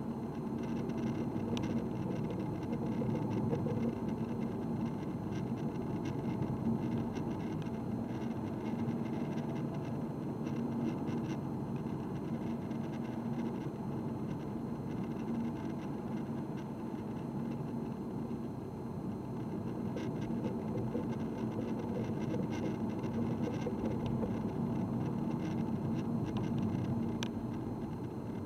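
A diesel car running steadily, a constant engine hum mixed with even road and driving noise.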